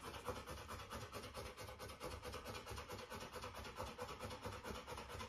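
Rottweiler puppy panting quickly and evenly, faint.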